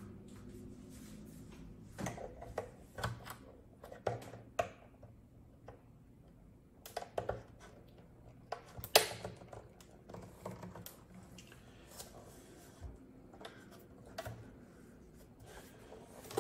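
Scattered plastic clicks, taps and scrapes as a screwdriver pries at the clipped-on top grill of a Linksys MX5300 router's plastic case, the sharpest click about nine seconds in.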